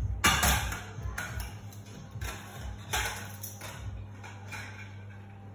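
Metal spoon clinking and scraping against a saucepan and plate while hot food is served onto toast: a string of sharp clinks, the loudest near the start, over a steady low hum.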